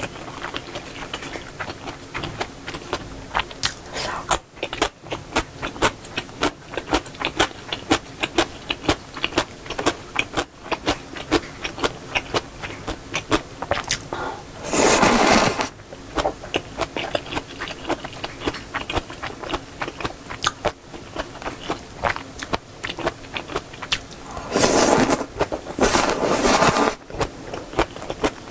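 Eating sounds: wet chewing and lip smacks as rapid short clicks, broken by loud slurps of samseon jjamppong (seafood noodle soup) noodles about halfway through and again for a couple of seconds near the end.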